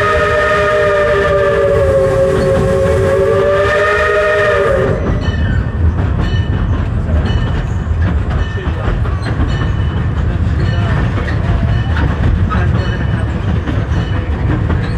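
Steam locomotive's chime whistle blowing a long chord of several notes that cuts off about five seconds in, followed by the low rumble of the train rolling on the rails with faint regular clicks.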